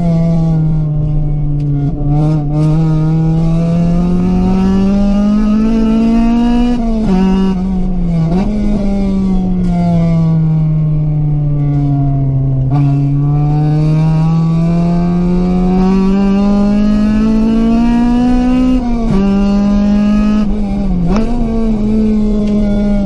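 Honda CRX's 1.6-litre B16A1 VTEC four-cylinder engine heard onboard under hard driving: revs sag, then climb slowly and steadily, fall away, and climb again, with quick dips in pitch about 7 and 8 seconds in and again near 19 and 21 seconds, as at gear changes or lifts of the throttle.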